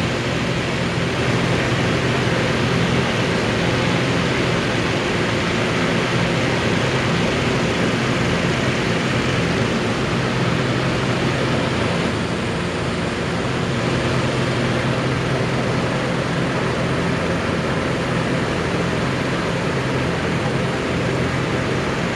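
Steady, loud mechanical roar of hot-air balloon inflation: engine-driven inflator fans running, with a steady low hum, as the balloons are filled for launch.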